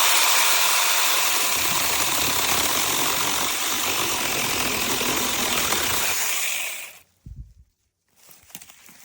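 6-inch cordless brushless mini chainsaw running at full speed and cutting through wood, a loud even buzz that cuts off suddenly about seven seconds in. A short dull thud follows.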